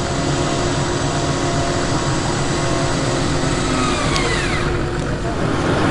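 Electric winch on a bogged Toyota Land Cruiser whining steadily over the running engine as it works to pull the truck out of the mud; the whine drops out for about a second near the end.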